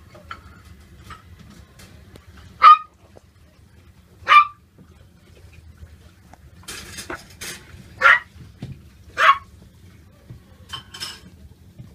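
Young puppies yipping: four short, sharp, high yips spread a second or more apart, with fainter yaps and squeaks between them.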